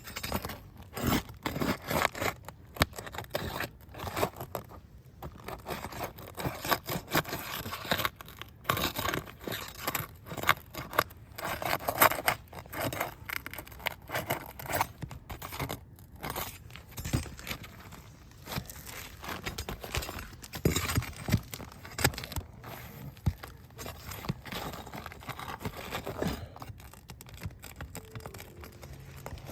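Asphalt roof shingles being lifted and worked loose: irregular scraping, crinkling and tearing noises with many short sharp strokes.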